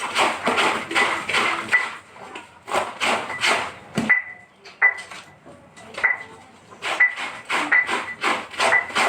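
Clothes being scrubbed by hand in rhythmic rubbing strokes, about two to three a second, many ending in a brief high squeak. The strokes thin out to a few spaced ones around the middle, with a single dull knock about four seconds in.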